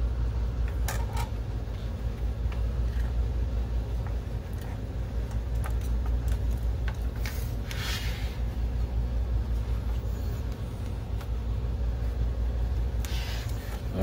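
Scattered clicks and rustling of plastic parts and a ribbon cable being handled as a disassembled DLP projector is put back together, with a brief rustling burst around seven to eight seconds in. A steady low rumble runs underneath throughout.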